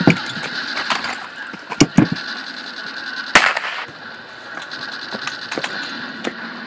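Gunfire: several sharp shots in the first three and a half seconds, two of them in quick succession around two seconds in, with scattered fainter cracks in between.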